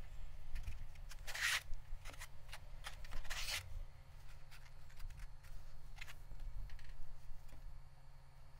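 Wet sponge rubbing and wiping over the outside of a soft terra cotta air-dry clay pot, in irregular rasping strokes, the two loudest about a second and a half and three and a half seconds in.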